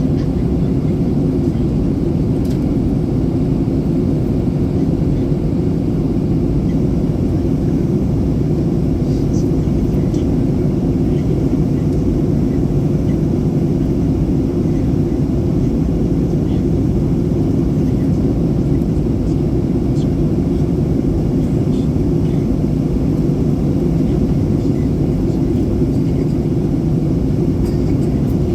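Steady low cabin rumble inside a Boeing 737-800 on descent, the hum of its CFM56 engines and airflow over the fuselage, unchanging throughout.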